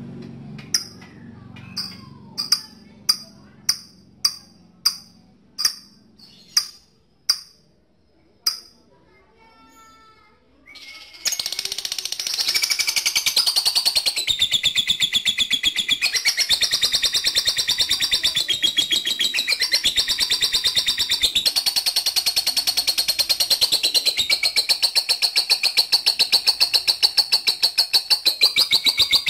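Lovebird calling: about ten sharp, separate high squawks over the first nine seconds, then from about eleven seconds a long, unbroken rapid chattering trill, the 'ngekek' of a lovebird in full song.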